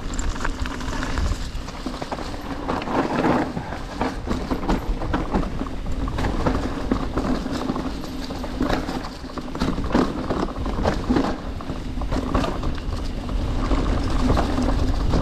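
Trek Slash full-suspension mountain bike clattering as it rides down a rough trail: irregular knocks and rattles from the bike over the ground, over a low rumble and a steady hum.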